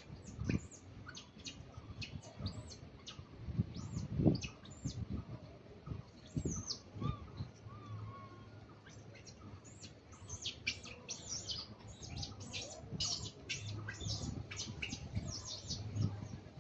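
Many short, high-pitched chirps, each falling quickly in pitch. They come singly at first and in quick, dense runs in the second half, with a few dull low thumps, the loudest about four seconds in.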